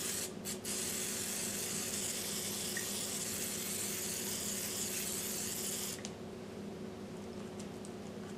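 Olive-oil spray bottle misting with a steady hiss, broken twice very briefly near the start, that stops about six seconds in. A faint steady hum from the preheating air fryer runs underneath.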